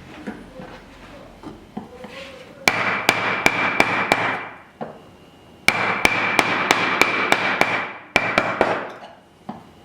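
A chisel being struck with a mallet to chop waste out of a lap joint: runs of sharp blows at about four a second, with short pauses between, each blow leaving a ringing tone.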